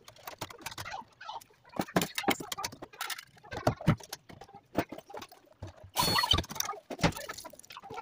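Irregular clicks, taps and scraping of hand work on a wooden door, with a short harsh burst of noise about six seconds in.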